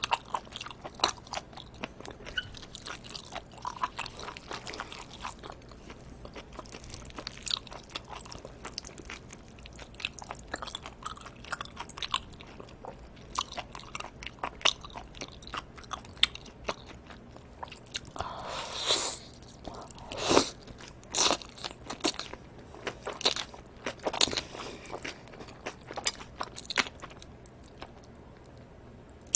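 Close-miked eating of live octopus and cold bibim noodles: dense biting and chewing mouth sounds, many short sharp clicks, with a longer noisy sound about two-thirds through and the loudest bites just after.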